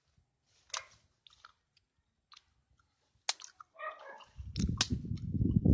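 Chewing of fresh wild sweet potato (kamote), soft wet mouth clicks and crunches scattered over the first three seconds. From about four seconds in, a loud low rumble on the microphone takes over.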